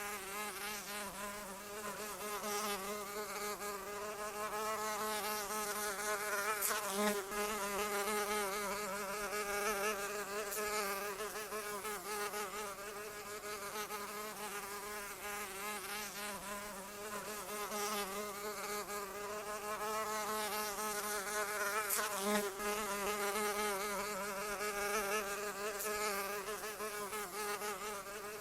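A fly buzzing continuously in flight, its wingbeat hum wavering slightly in pitch and swelling and fading in loudness as it moves.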